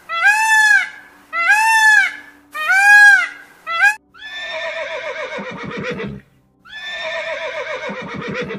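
An Indian peacock gives three loud, arched calls about a second apart, then a short fourth one. A horse then whinnies twice. Each whinny is about two seconds long, falls in pitch with a shake and ends in low rapid pulses.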